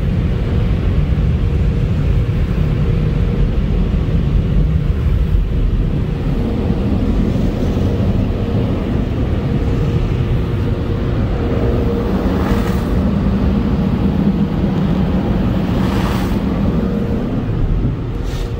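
Car wash tunnel equipment running, heard from inside the car: a loud, steady rumble with a faint steady hum, swelling into a brief hiss twice near the end.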